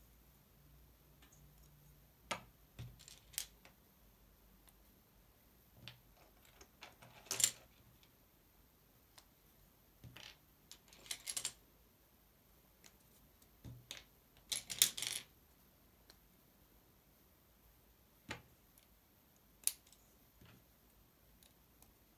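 Small plastic LEGO pieces clicking and clattering as they are handled, picked from a pile on a hard table and snapped together, in scattered short bursts a few seconds apart.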